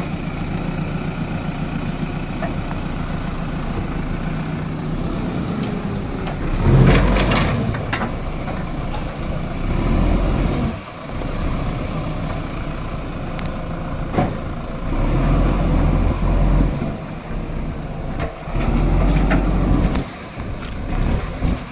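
JCB backhoe loader's diesel engine running under load as the machine crosses a small drain, its revs rising in several surges. A few sharp knocks come about seven seconds in.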